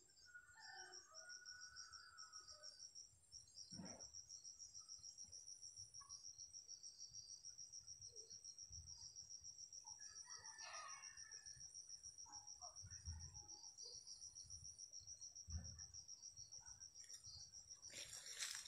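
Faint, steady insect trill, cricket-like, with a rapid, even pulse. A few short chirps come through it, and there is a brief rustle near the end.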